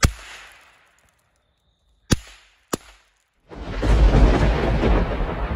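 World Class adult snappers (throw-down bang snaps) cracking on pavement three times: once at the start, then twice more about two seconds and nearly three seconds in. About three and a half seconds in, a loud, sustained, rumbling explosion-like noise takes over.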